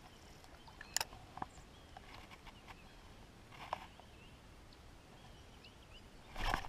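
Quiet pond-side outdoor background with faint, scattered short bird chirps and a few faint clicks, as from handling a spinning rod and reel. A brief louder rustle comes near the end.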